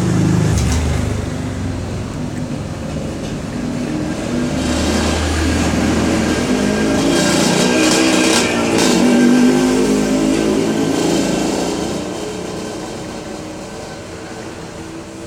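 A motor engine running and revving unevenly, louder through the middle and fading over the last few seconds.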